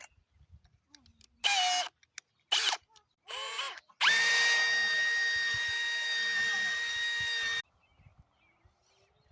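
A power drill runs steadily at one pitch for about three and a half seconds and stops suddenly, fastening a horizontal brace post into a fence end post. A few short sounds come before it.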